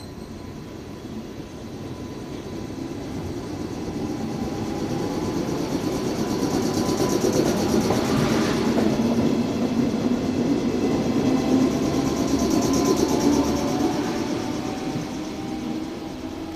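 JR West 105 series resistor-controlled electric multiple unit pulling away from a station. Traction motors and gears whine, rising slowly in pitch as it accelerates, over the rumble of wheels on rail. It swells to its loudest as the cars pass close by, then fades as the train draws away.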